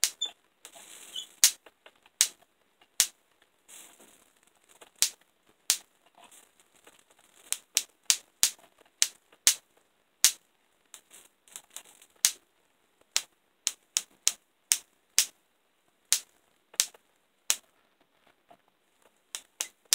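Van de Graaff generator sparks snapping between a hand-held metal discharge sphere and the powder-covered metal lid on top of the generator: about thirty sharp cracks at irregular intervals, coming thicker in the middle.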